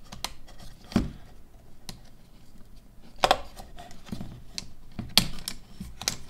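Flathead screwdriver prying at the plastic catches on a beyerdynamic DT1770 headband slider: sharp plastic clicks and snaps, the loudest about a second in, just past three seconds and about five seconds in, with small ticks and scraping between.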